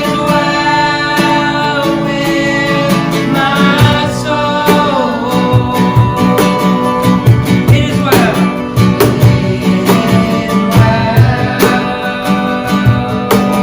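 Worship band music led by acoustic guitar, with a steady low drum beat joining about four seconds in.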